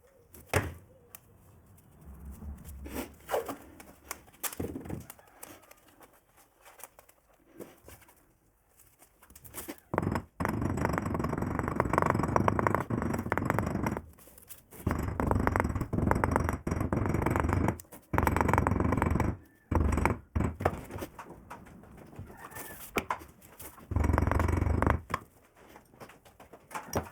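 Scattered knocks and clatter of handling metal parts, then a power tool working on metal in runs of a few seconds, switched on and off several times.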